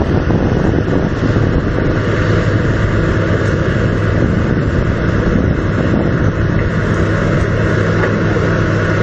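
Excavator's diesel engine running steadily, a loud low drone that holds even throughout.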